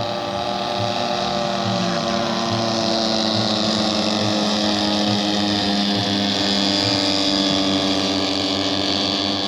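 Radio-controlled model airplane engine running steadily, its pitch drifting slightly and growing a little louder early on.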